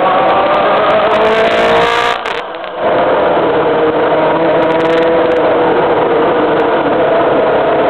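2011 Caterham (Team Lotus) T128 Formula One car's V8 engine at high revs under way, heard from under the car's nose with a haze of wind and road noise. The pitch climbs, the sound dips briefly about two seconds in, then the engine runs on at a high, fairly steady pitch.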